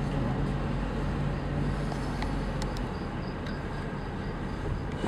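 Steady car engine and road noise heard from inside a moving car's cabin, a low hum under an even rush.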